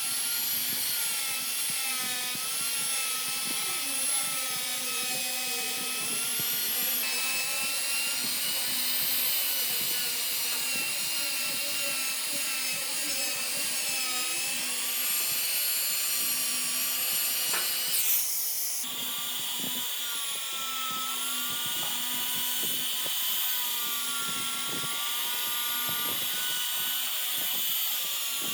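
Electric power tool motor running continuously while working wood, its whine drifting up and down in pitch as the load changes. A brief burst of noise comes about two thirds of the way in.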